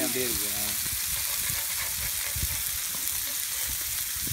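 Tilapia pieces frying in oil on a large flat pan, a steady sizzling hiss.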